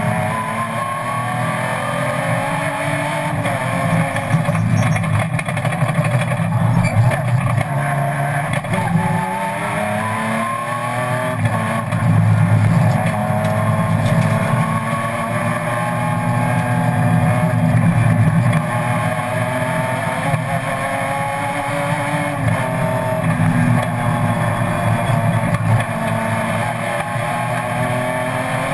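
BMW M3 race car's engine under hard acceleration, heard from inside the cockpit. Its pitch climbs over a few seconds and drops back at each gear change, over and over, above a steady low rumble.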